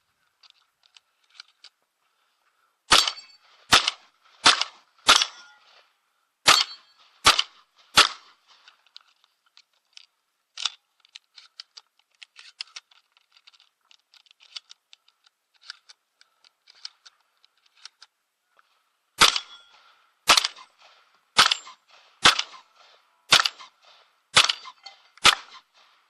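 Shotgun fired in two quick strings of about seven shots each, a little under a second apart. The strings are about eleven seconds apart, with a single shot in between and light clicks and knocks in the gap.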